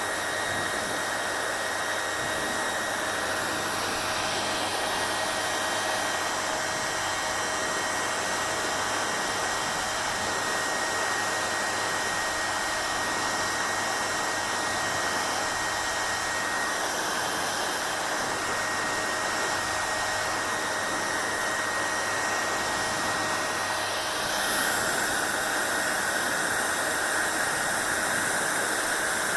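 Electric hair dryer running steadily: an even rush of air with a faint high motor whine. About 24 seconds in, the sound shifts in tone and gets slightly louder.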